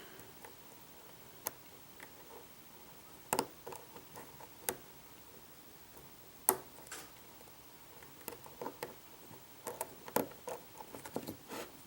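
Light, irregular metallic clicks and ticks of a hook pick working the pins inside a Vachette V5 pin-tumbler lock under light tension, with several clicks close together near the end.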